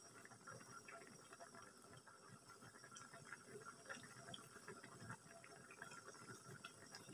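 Near silence: crab in sauce simmering faintly under the lid of a covered wok, with soft scattered ticks and pops.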